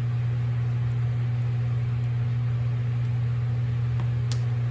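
Portacool evaporative cooler's fan running with a steady hum, plus a couple of light clicks near the end as a tool works at a lawn tractor wheel's dust cap.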